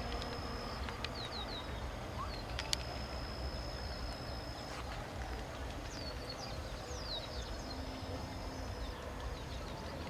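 Small birds chirping over a steady low outdoor rumble: short falling high notes in quick runs of three, and long, steady, high whistles. A sharp click comes right at the start and another a little under three seconds in.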